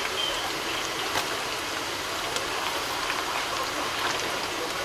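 Cubes of tofu deep-frying in hot oil in a wok: a steady sizzle with small scattered pops and crackles.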